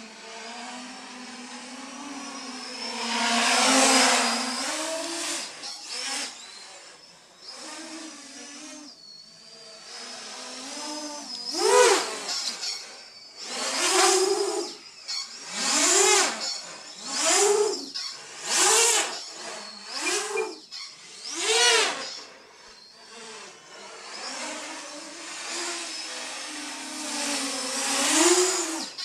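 A 450-size quadcopter's electric motors and propellers whining in flight, with a swell about four seconds in. From about twelve seconds in comes a run of about seven sharp throttle bursts roughly every second and a half, each rising and falling in pitch, before it settles back to a steadier whine.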